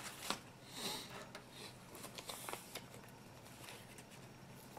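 Faint rustling and crinkling of pleated origami paper being handled, with a few soft ticks and two brief louder rustles about one and two seconds in.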